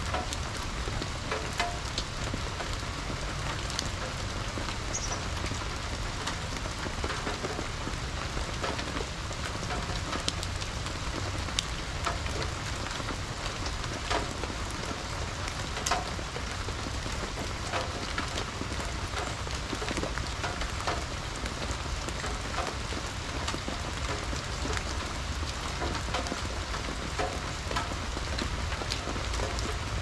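Steady rain falling on wet fallen leaves and a water-filled birdbath, with scattered louder single drops tapping through it.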